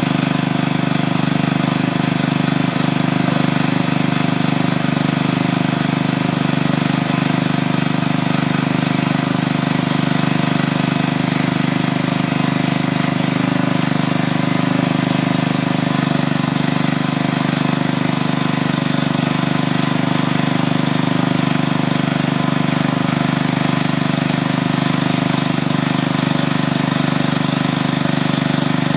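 Lawn mower engine running steadily at an even speed, with no change in pitch or level.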